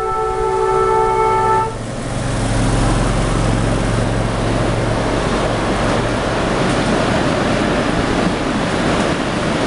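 A multi-tone horn blows a steady chord and cuts off about two seconds in. Then the steady rumble and rattle of a ridable miniature train rolling past on its track.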